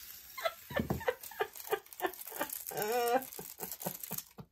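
Small resin diamond-painting drills spilling and being swept across a paper-covered table: a scatter of light, irregular clicks and rattles. A short wavering vocal moan about three seconds in.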